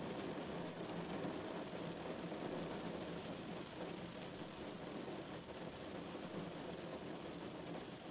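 Steady rain falling on a car's roof and windshield, heard from inside the cabin as an even hiss.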